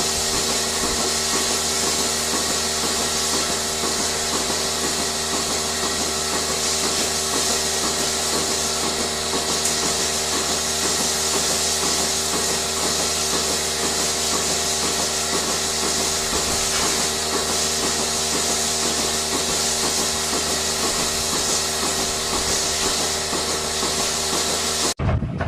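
A machine running steadily: an even hum with several fixed tones, a hiss and a fast regular pulsing. It cuts off abruptly near the end.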